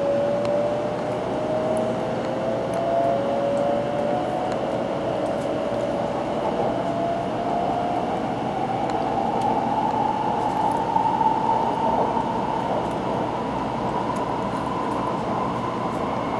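800 Series Shinkansen running at speed, heard from inside the passenger car: steady running noise with the traction motors' whine rising smoothly in pitch as the train accelerates.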